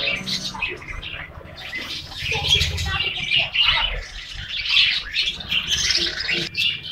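A flock of caged budgerigars chattering and chirping continuously, many birds calling over one another.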